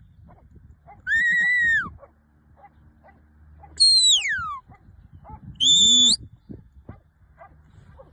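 A restless dog whining in three loud, high-pitched cries: a held whine about a second in, a whine that slides down in pitch about four seconds in, and a shorter one near six seconds.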